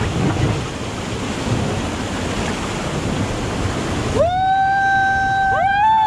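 Whitewater rapids rushing and splashing around an inflatable raft. About four seconds in the rush cuts off suddenly and a long held high-pitched tone takes over, wavering up and down near the end.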